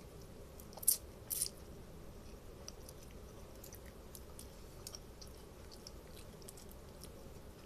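A person chewing a mouthful of noodles close to the microphone, with small wet mouth clicks throughout. Two sharper clicks about a second in are the loudest sounds.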